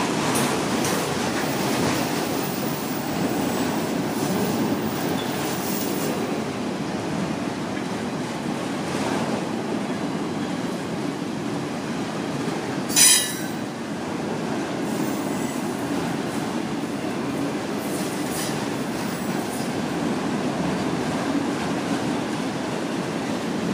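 Freight train of autorack cars rolling steadily past: the continuous rumble and rattle of steel wheels on rail, with one brief, loud, sharp sound about halfway through.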